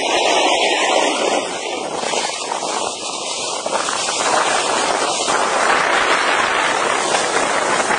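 Steady rushing noise of wind buffeting the microphone and skis hissing over packed snow while skiing downhill.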